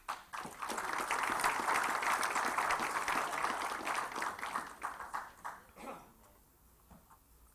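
Audience applauding, the clapping building up within the first second and dying away about six seconds in.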